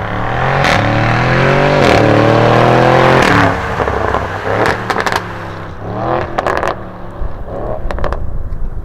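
Supercar engine accelerating hard, with the pitch dropping at a gear change about two seconds in and climbing again. Then it lifts off, and short throttle blips follow with sharp exhaust pops and crackles.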